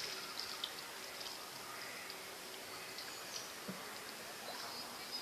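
Quiet outdoor ambience: a steady high insect buzz with a few faint bird chirps and scattered small clicks.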